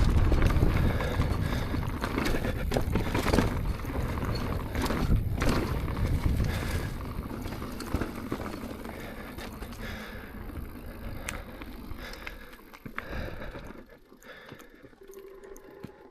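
2024 Propain Tyee mountain bike riding down a trail: tyres rolling over dirt and rocks, with scattered knocks and rattles and heavy wind on the microphone. It dies down about 13 to 14 seconds in as the bike slows.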